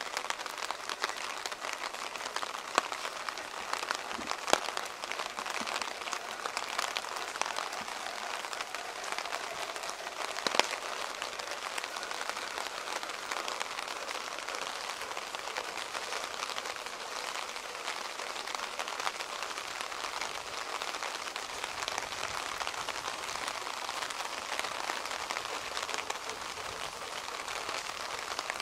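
Steady rain falling, a dense patter of close drops. A few louder single drips stand out in the first half.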